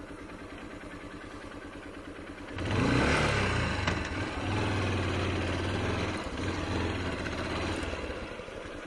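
Motorcycle engine ticking over at low revs, then revved hard about two and a half seconds in and held high for several seconds, dipping briefly and easing back down near the end.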